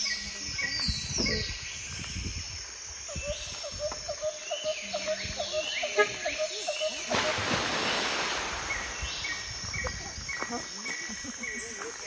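Birds calling around a forest lake: a regularly repeated short chirp, several falling notes higher up, and a fast run of lower notes a few seconds in. A brief rush of noise comes about seven seconds in.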